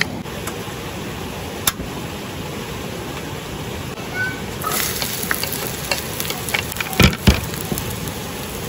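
Camp cooking sounds: pots and utensils being handled, with scattered clicks and knocks and two heavier thumps about seven seconds in, over a steady rushing hiss that grows brighter about halfway through.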